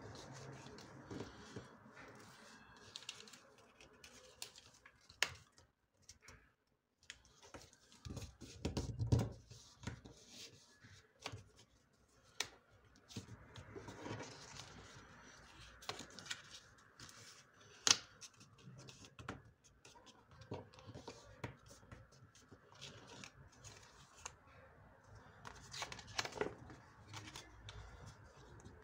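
A sheet of origami paper being folded and creased by hand: irregular rustling and crinkling with sharp little crackles as folds are pressed down.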